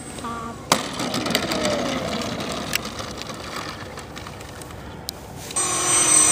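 Flight-field audio of homemade foam RC planes: a sharp knock about a second in, then wind noise with a faint motor whine. Near the end a louder RC plane motor and propeller whine comes in, rising in pitch.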